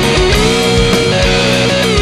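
Rock music with a lead electric guitar holding long, wavering notes over a steady drum beat.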